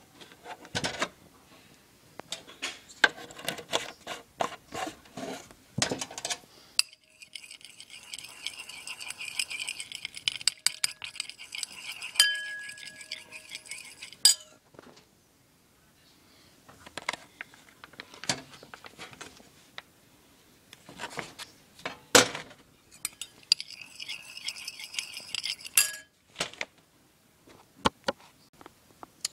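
Kitchen utensils and dishes clinking and knocking, with two stretches of steady high hiss several seconds long.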